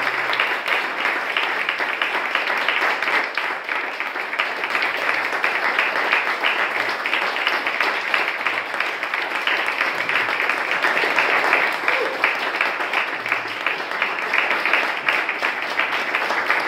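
Audience applauding steadily, a dense clapping that keeps up throughout.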